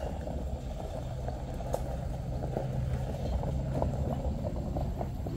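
A steady low mechanical hum, like a motor running, with a faint click or two.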